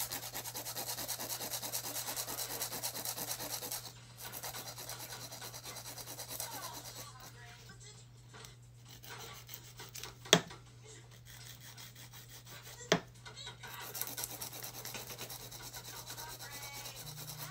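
A nail buffer rubbed quickly back and forth over fingernails to take off the shine, hardest for the first few seconds and lighter after that, over a steady low hum. Two sharp clicks come about ten and thirteen seconds in.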